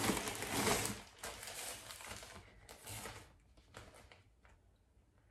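Clear plastic garment bag crinkling and rustling as it is handled, loudest in the first second, then a few softer rustles around three seconds in.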